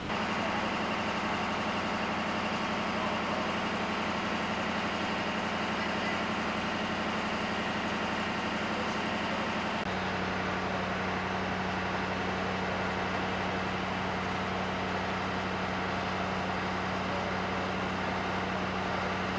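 Vehicle engine idling steadily, a constant low hum, at an emergency scene where fire and police vehicles stand by.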